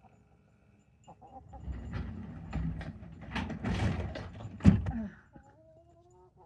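Parts of a small greenhouse kit being handled and fitted together: rustling and clattering with repeated clicks, and one sharp knock, the loudest sound, about four and a half seconds in.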